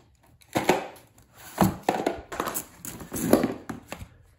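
Cardboard packing pieces and a black plastic Packout mounting plate being handled and lifted out of their box: a string of rustles, scrapes and knocks.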